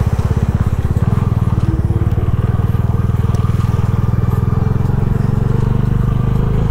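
Bajaj Dominar 250's single-cylinder engine running steadily with an even pulse as the motorcycle is ridden slowly through a water crossing.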